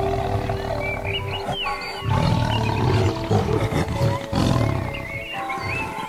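Tiger growling low and rough in stretches of a second or two, with short breaks, over soft instrumental music with held notes.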